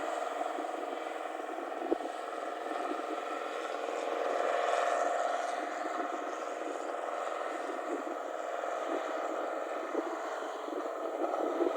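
Rice combine harvester's engine running hard through its loud exhaust while the machine drives, swelling louder about four to five seconds in.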